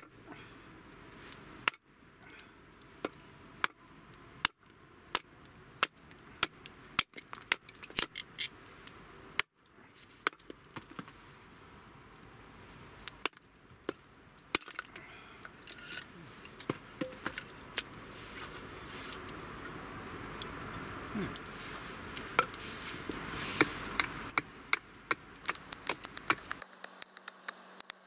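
Wood being chopped and split on a wooden chopping block with a hatchet: many sharp strikes at irregular intervals.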